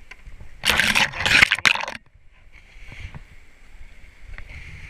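A kayak's hull scraping and sliding over a grassy bank for about a second and a half, in two or three rough pushes, during a portage. A faint steady rush continues underneath.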